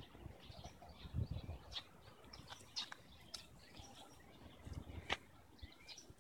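Quiet outdoor ambience with scattered short, high bird chirps, and a brief low rumble about a second in.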